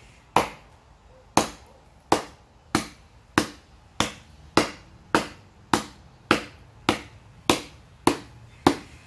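Khotang Khukuri Handicraft Derringer khukuri blade chopping into an upright stick of wood: about fourteen sharp, evenly spaced chops, a bit under two a second.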